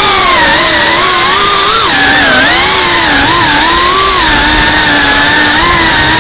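GEPRC Cinelog35 FPV quadcopter's brushless motors and ducted propellers whining loudly, picked up by the onboard camera's microphone. The pitch rises and falls with throttle, dips sharply about two seconds in, and steadies near the end.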